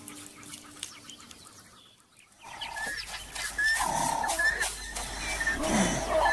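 Background music fading out, then bush ambience: a bird's short rising chirps repeating about twice a second, and a few low animal calls, one falling in pitch near the end.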